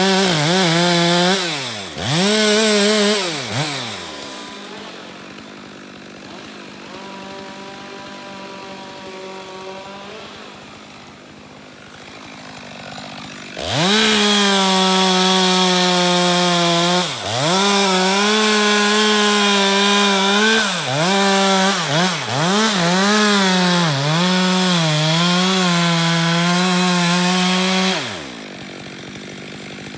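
Two-stroke chainsaw cutting into a beech trunk at full throttle, its pitch dipping as it loads, then easing to idle about four seconds in. After some ten seconds of idling it revs up and cuts again for about fourteen seconds, bogging down under load several times, and drops back to idle near the end.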